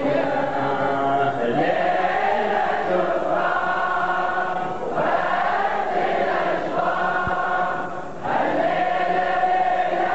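Large crowd of men chanting an Ashura mourning lament in unison, in long drawn-out phrases a few seconds each with brief breaks between.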